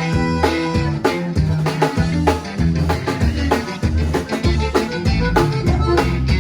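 Live conjunto band playing: accordion and plucked strings over bass and drums keeping a steady, even beat.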